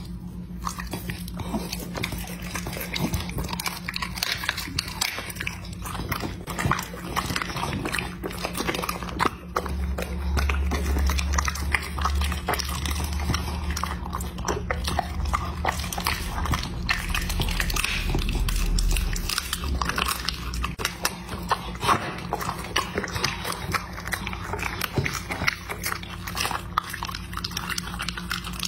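A dog chewing and eating raw chicken: a dense, unbroken run of wet smacks and crunches.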